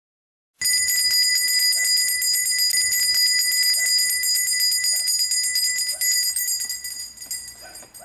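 Bells jingling in a rapid, shimmering shake over steady high ringing tones. It starts suddenly about half a second in and fades away near the end.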